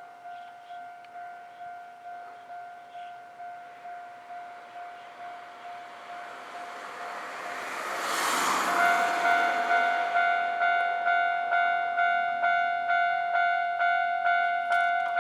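Japanese railway level-crossing warning bell ringing its quick, evenly repeated electronic ding, a few strikes a second. A rushing noise swells to a peak about eight seconds in. Right after that the bell rings louder and brighter.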